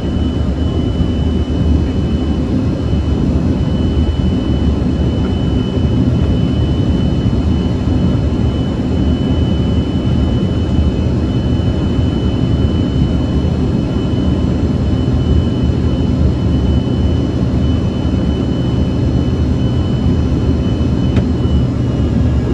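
Cabin noise of an Embraer ERJ145 regional jet in flight: a steady low rumble from its rear-mounted turbofan engines and the airflow, with a thin high whine over it that fades out near the end.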